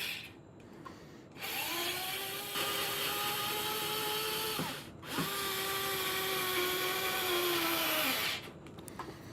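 Craftsman 4V cordless screwdriver's small electric motor running in two bursts of about three seconds each, with a brief stop between; its whine rises in pitch as it spins up and drops as it winds down.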